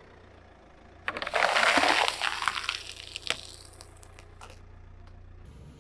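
Car tyre rolling over and crushing a block of dry floral foam studded with pretzel sticks: a loud crunching and crackling starts about a second in and lasts about two seconds, followed by a few sharp snaps, over a low steady hum.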